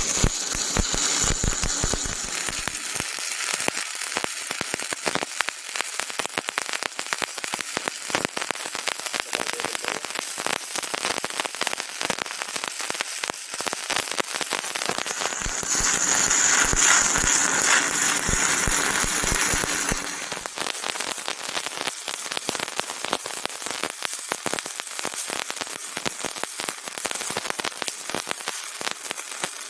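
Stick welding arc crackling and sputtering steadily, briefly louder and hissier a little past the middle.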